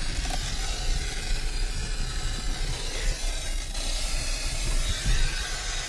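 Car interior noise while driving on a rough dirt track: a steady low rumble of engine and tyres with a broad hiss over it.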